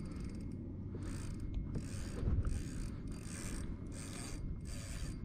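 Fishing reel working under the load of a big hooked tarpon: a run of short mechanical bursts, about one to two a second, over a steady low rumble.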